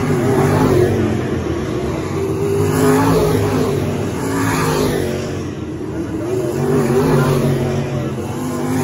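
Dirt-track modified race cars' V8 engines running hard as the pack comes past in a string, the engine noise swelling and fading several times as cars go by.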